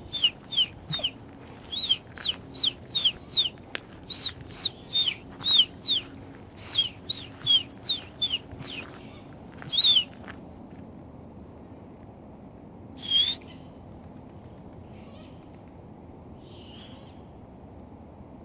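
A rapid series of short, high, downward-sliding bird calls, about two a second, stopping about ten seconds in, with one more call a few seconds later.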